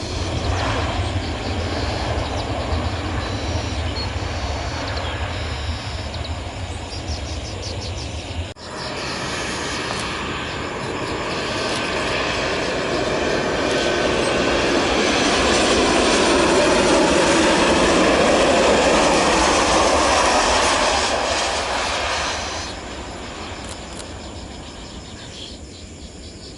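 Jet airliner engine noise as a plane moves along the runway: a rushing noise that swells to its loudest about two-thirds of the way through, then drops away abruptly. There is a short break about a third of the way in.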